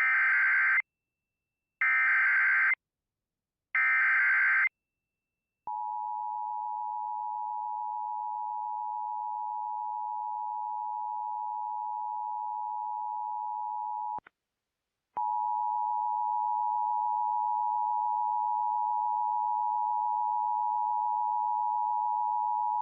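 Emergency Alert System tornado warning opening: three short bursts of SAME header data tones from an EAS encoder, then the steady two-tone attention signal. The dual tone breaks off for about a second around two-thirds of the way through, then resumes a little louder.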